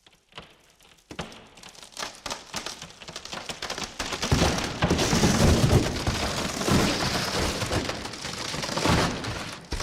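Plywood cracking and splintering under strain: scattered small cracks that build over a few seconds into a dense, loud crackle, then stop suddenly near the end.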